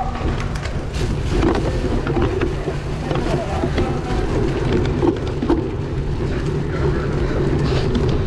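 Strong wind buffeting the camera microphone in a steady low rumble, with scattered short clicks and knocks through it.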